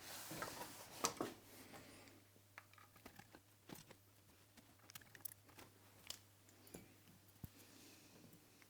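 Faint handling noises as small parts of a measuring microscope are worked on by hand: a short rustle with a sharp click about a second in, then scattered light clicks and taps.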